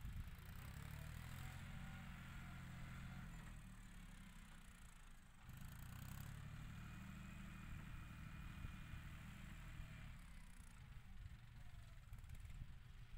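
Faint John Deere 5045 tractor diesel engine working steadily under load while pushing soil. It eases off briefly about four to five seconds in, then pulls again.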